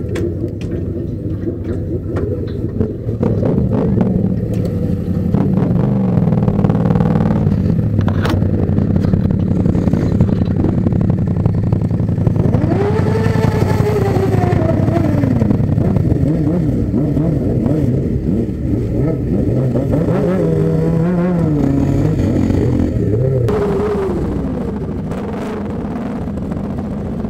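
Several sport-motorcycle engines running together at low speed, with a steady rumble. A throttle is revved up and back down about halfway through, and there are more short revs later on.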